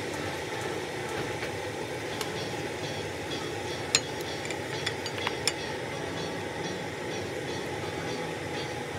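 Stir-fried food being scraped out of a non-stick pot onto a porcelain plate: a few sharp clinks of the utensil against the pot and plate, the loudest about four seconds in, over a steady background hum.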